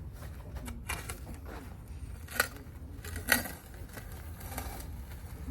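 Two sharp clicks, about a second apart near the middle, with lighter ticks and small handling noises over a steady low rumble.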